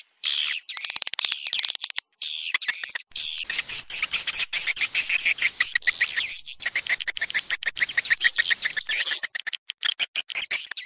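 Swiftlet call recording used to lure swiftlets into a bird house: dense, rapid chirping and twittering, broken by a few brief silent gaps in the first three seconds.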